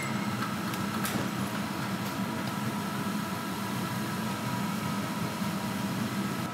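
A steady low hum, with a sharp click about a second in as a gas hob burner is lit with a hand lighter.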